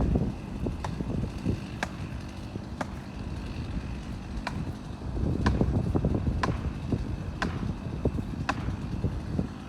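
Heavy machinery rumbling with a sharp clack about once a second, typical of tree-removal work.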